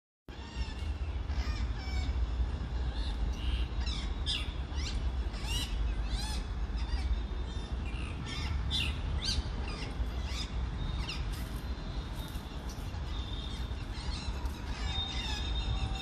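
Rose-ringed parakeets calling, a run of short, sharp, rising-and-falling squawks, many in a row at first and fewer near the end, over a steady low rumble.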